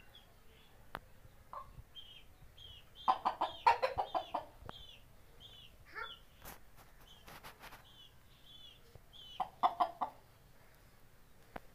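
Aseel chickens clucking in two quick runs of loud, rapid clucks, about three seconds in and again near ten seconds, as the rooster mounts the hen. Under them, a faint high chirp repeats about every three quarters of a second.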